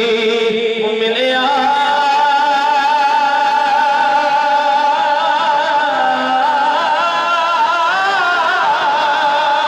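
A man's voice singing a Punjabi devotional song, holding one long, drawn-out note with a wavering vibrato that climbs higher near the end.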